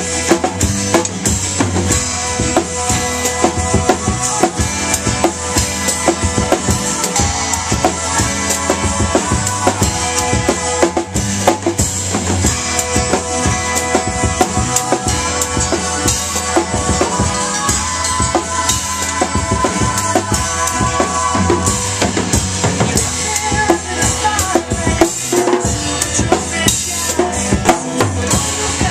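Acoustic drum kit (snare, bass drum and cymbals) played live along with a rock song's recording, a steady beat over the band's backing.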